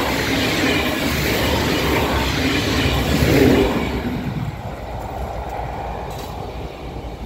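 erixx regional diesel multiple unit passing close by, its running noise peaking about three and a half seconds in, then fading as the train moves away.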